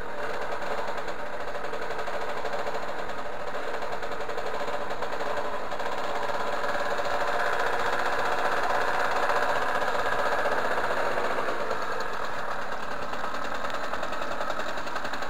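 Derbi 50cc two-stroke moped engine running steadily on its stand while it warms up, a little louder for a few seconds midway.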